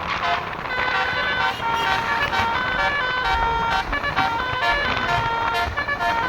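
Basuri telolet bus horn playing a fast tune: clear, steady horn notes that step from pitch to pitch every fraction of a second, often several sounding together.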